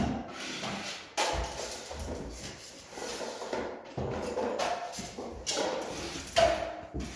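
Drywall taping work: scraping, rustling and knocking as paper tape is run out of a drywall banjo and pressed into the joints, in several sudden bursts each lasting a second or so.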